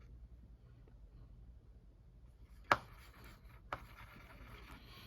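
Handling noises of painting tools: two sharp taps about a second apart near the middle, then light rubbing and scraping.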